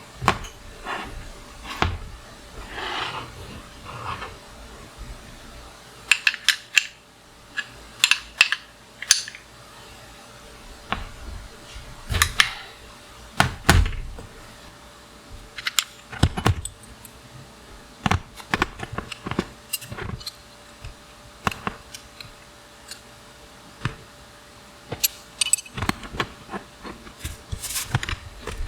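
Hand tools and small metal bicycle parts clinking and knocking as they are handled and taken apart: irregular sharp clicks and taps, with a few louder knocks around the middle.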